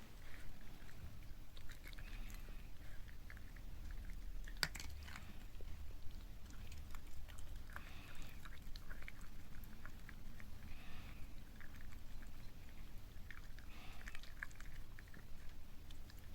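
Toy poodle chewing and munching food, with irregular small clicks throughout, the sharpest about four and a half seconds in.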